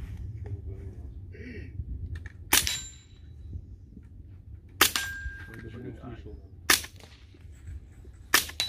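Four suppressed rifle shots from an AR-style rifle fitted with a full-size suppressor, about two seconds apart. Each is a short sharp crack of the action cycling, followed by a brief thin ring from the steel target being hit.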